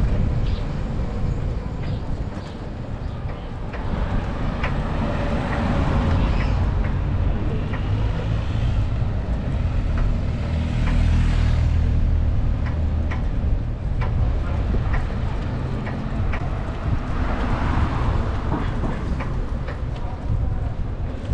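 Street noise from a moving bicycle: a steady low rumble of wind and road on the action-camera microphone, with scattered small clicks and rattles. City traffic swells past about six seconds in and again near the end.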